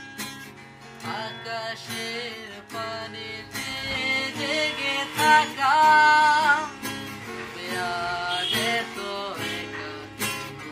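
A man singing to his own strummed acoustic guitar. His voice comes in about a second in and is loudest around the middle, where he holds long notes with a slight waver, while the guitar strumming goes on underneath.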